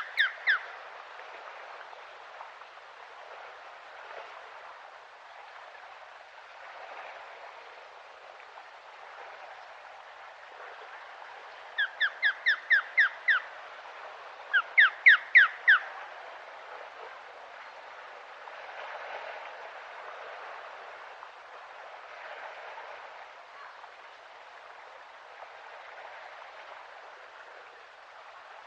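Osprey calling in runs of short, sharp whistled notes, each note rising in pitch: a brief run at the very start, then about six notes around twelve seconds in and another run around fifteen seconds in, over a steady outdoor hiss.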